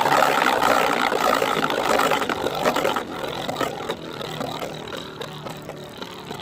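Two spinning Beyblade tops, Cursed Drakken and Ratchet Tortuga, whirring and grinding against each other in the stadium, with many small clicks of contact. The grinding is loudest for the first three seconds after the launch and then fades to a quieter steady whir with occasional clicks as the battle turns into a stamina battle.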